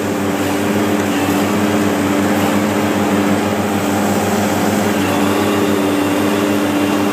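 Asphalt paver's diesel engine running steadily, a constant drone heard up close from its operator platform.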